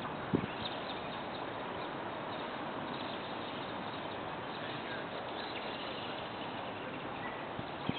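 Outdoor ambience: a steady hiss of background noise with faint bird chirps, and a single sharp knock about a third of a second in.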